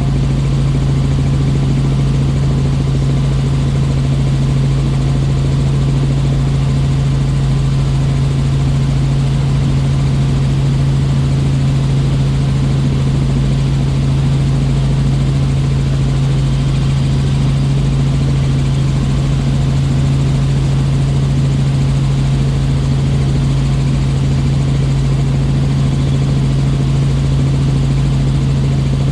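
Helicopter in flight heard from inside the passenger cabin: a steady, loud drone of engine and rotors with a strong, unchanging low hum.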